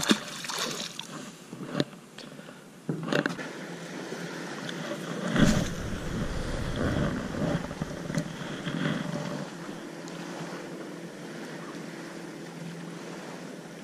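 A small bass splashes as it is dropped back into the lake. After a cut, a spinning rod is cast and wind rumbles over the chest-mounted camera's microphone for a few seconds, over a steady low hum.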